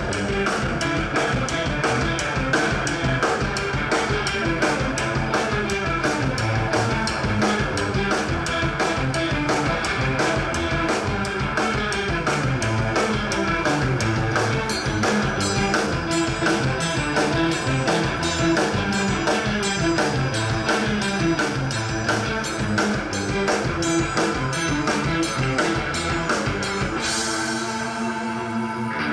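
Live rock band playing: two electric guitars, bass guitar and drum kit driving a steady, even beat. Near the end the lowest notes drop away for a moment.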